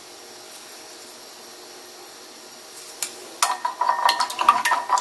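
Wooden chopsticks beating a raw egg in a glass bowl, starting about three and a half seconds in: a rapid run of clinks against the glass, which rings with each strike.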